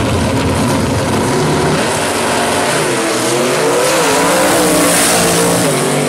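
Gasser drag car's engine at full throttle as it launches off the line and accelerates down the strip, its pitch climbing and dipping as it pulls away.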